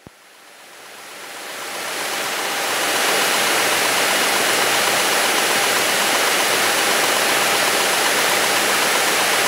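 Cabin noise of a single-engine high-wing light aircraft in cruise: a steady hiss of engine, propeller and airflow with faint steady tones underneath. It fades in over the first three seconds, then holds level.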